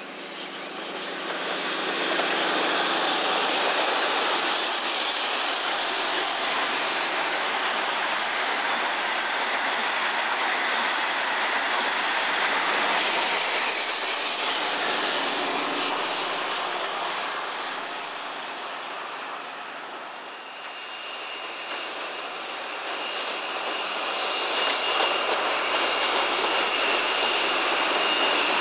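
InterCity 125 diesel high-speed train running past at speed: a loud rushing roar of the power car and coaches with a high whine over it. About two-thirds of the way in it dips, then a power car's engine comes back close with a steady high-pitched whine.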